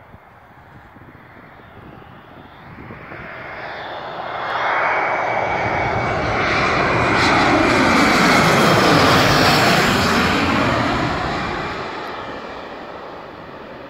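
Embraer E175 regional jet on final approach, its two GE CF34-8E turbofans passing low overhead. The jet noise grows steadily, is loudest about two-thirds of the way through, then fades as the aircraft heads for the runway.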